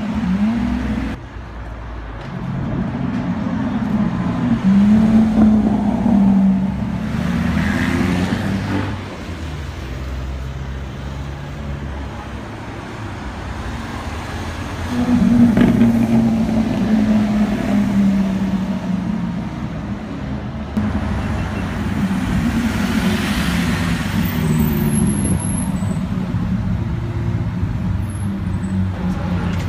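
Supercar engines, among them a Lamborghini Aventador's V12, as the cars drive slowly past, revs rising and falling. The loudest swells come about five and fifteen seconds in, over steady street traffic.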